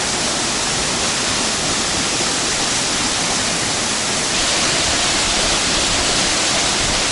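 Waterfall: a steady, dense rush of falling water, growing a little louder about four seconds in.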